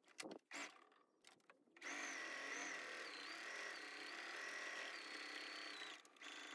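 Electric sewing machine running steadily for about four seconds as it stitches a seam, starting about two seconds in and stopping shortly before the end, with a few brief sounds before it starts.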